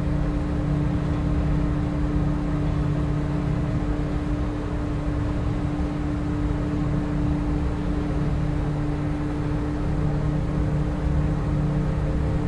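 Outboard motor running at a steady speed with the boat under way: an even drone with a constant hum.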